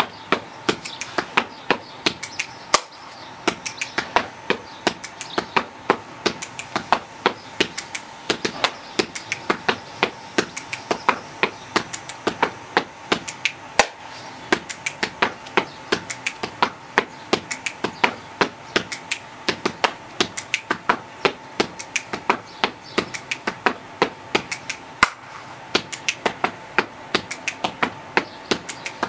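Body percussion: a continuous rhythmic phrase of hand claps and strikes on the body, several sharp strikes a second, played without a break.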